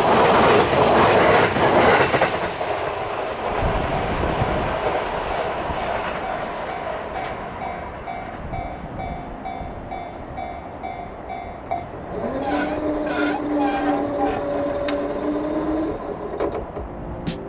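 Narita Express limited express train passing over the crossing, its wheels clattering loudly for the first two or three seconds before the sound dies away. A quieter repeating ringing tone follows, and near the end a held tone that rises briefly at its start, with a few clicks.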